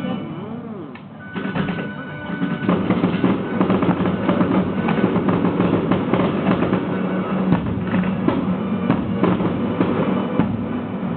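Music with a busy drum beat, filling out after the first couple of seconds.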